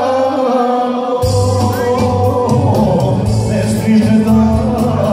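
A man singing into a microphone, amplified through a PA loudspeaker, over backing music. About a second in, the backing's low beat comes in and runs on under the voice.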